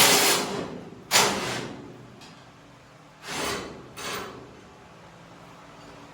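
Steel chassis parts being handled and fitted: two sharp metal knocks with a short scraping tail about a second apart, then two softer scrapes a couple of seconds later.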